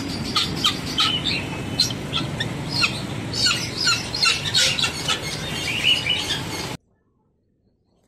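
Many small birds chirping and calling over one another, short sharp chirps following each other several times a second; the sound cuts off abruptly about seven seconds in.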